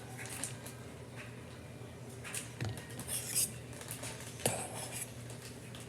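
A fork stirring and chopping a thick cream-cheese mixture in a bowl: a few faint scrapes and taps against the bowl over a low steady hum.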